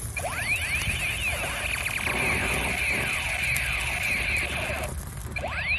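Battery-powered toy gun's electronic sound effect played through its small speaker as the trigger is held: a siren-like warble of repeated sweeping pitch glides, breaking off briefly about five seconds in.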